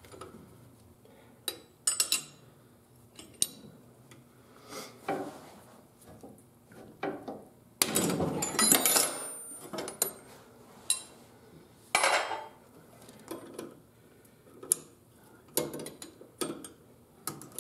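Steel hand wrenches clinking and knocking against the brake line fittings and each other as the lines are worked loose from the master cylinder, in scattered sharp clinks. A longer clattering rattle of metal tools comes a little before the middle.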